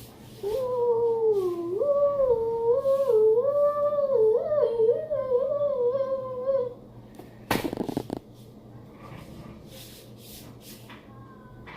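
A high-pitched voice humming a wavering tune for about six seconds, followed a second later by a short, loud noisy burst.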